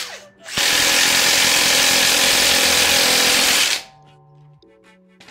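Milwaukee M18 cordless impact wrench hammering on a wheel's lug nuts, running in one long burst of about three seconds that stops sharply, after a short blip right at the start. Background music plays underneath and carries on after the wrench stops.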